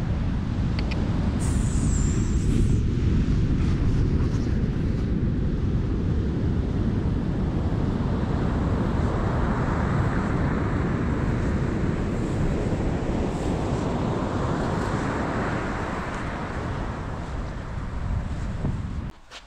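Wind buffeting the microphone on an open beach: a loud, steady low rumble, with a softer hiss swelling up twice, that cuts off suddenly near the end.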